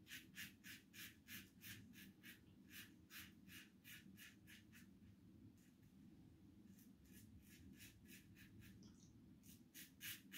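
Double-edge safety razor scraping through short stubble in quick strokes, about three a second, with a short break around the middle. The shave sounds noticeably crisper and more ringing here, which the shaver puts down to the shorter, stiffer stubble on the second pass.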